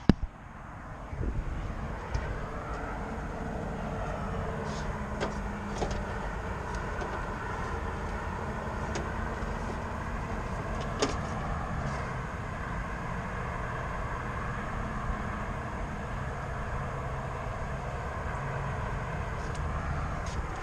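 Steady low outdoor rumble with a few short light clicks, one about five seconds in and a sharper one near eleven seconds.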